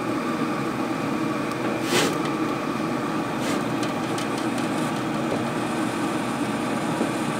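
Steady whirring hum of a running Camp Chef pellet grill, its fan going at cooking temperature, with one light click about two seconds in.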